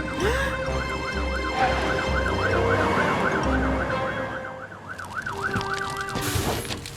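Cartoon fire truck's siren sounding in a fast, regular up-and-down yelp over low rhythmic thumping. The siren dies away about six seconds in.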